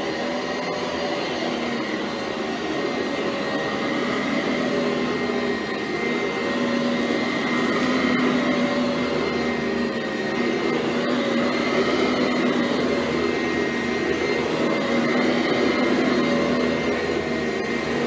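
Sanitaire SC887 commercial upright vacuum cleaner running steadily as it is pushed back and forth over carpet, its motor giving a constant high whine.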